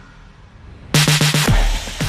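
GoPro logo outro music sting: about a second in, a quick run of drum hits, then a deep bass boom that falls in pitch.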